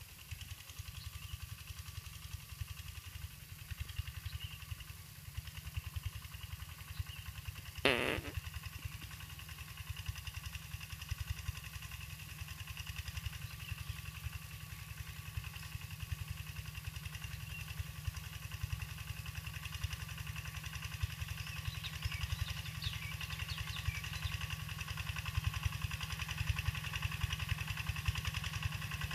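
Small diesel farm tractor engine chugging steadily under ploughing load, growing louder as it comes closer. A brief sharp sound about eight seconds in.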